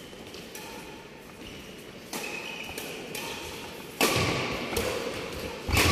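Badminton rally: racket strings hitting a shuttlecock, a lighter hit about two seconds in and two loud, sharp hits about four and six seconds in, each ringing on in the echo of a large sports hall.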